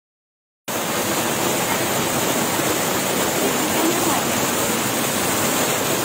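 Waterfall pouring into a pool: a steady, loud rush of falling water that starts abruptly just under a second in.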